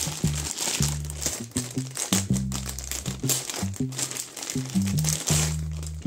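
Plastic packaging bag crinkling as it is handled and pulled off a part, over background music with held bass notes.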